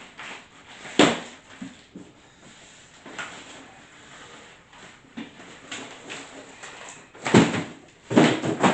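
Cardboard box and packing material being handled and pulled open: scattered rustling, with a sharp crackle or thump about a second in and louder ones near the end.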